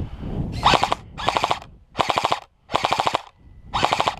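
Airsoft electric gun firing five short full-auto bursts, each a rapid clatter of shots lasting about half a second, with short pauses between.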